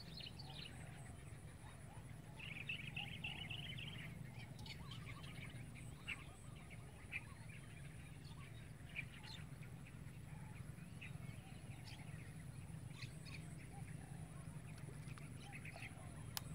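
Small birds chirping here and there, with a brief run of rapid chirps a few seconds in, over a steady low background hum of open-air ambience. A sharp click comes near the end.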